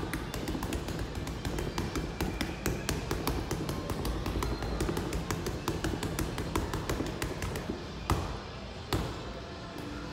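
Boxing gloves striking a Century heavy bag in a rapid flurry of punches, several a second, then two heavier single punches about a second apart near the end.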